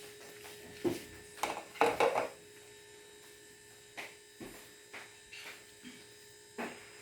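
Scattered clicks and knocks of lawnmower engine parts being handled during disassembly, loudest in a cluster about one to two seconds in, over a steady faint hum.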